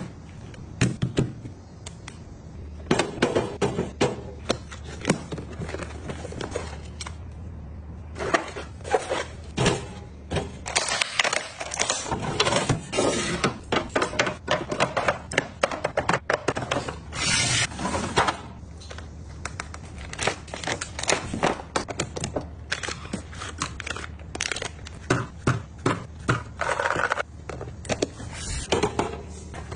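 Groceries being handled and put away in a fridge: plastic packaging rustling and crinkling, with many small knocks and clicks of containers being set down. A longer crinkle comes a little past halfway, and a low steady hum runs underneath.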